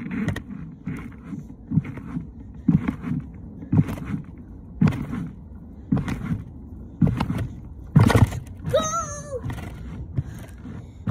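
Trampoline mat thumping under a barefoot jumper's landings, a regular bounce about once a second, with a short vocal cry about nine seconds in.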